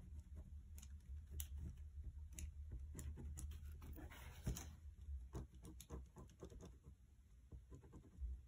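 Dry ballpoint pen's hard metal tip tracing lines over tracing paper on a lino block: faint scratching strokes with small ticks, denser for a moment around the middle.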